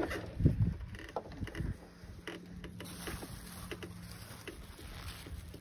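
Honda HRR216 walk-behind mower being tipped onto its side to drain its oil: knocks and clatter from the mower's body and wheels in the first two seconds, the loudest about half a second in, then only faint scattered clicks.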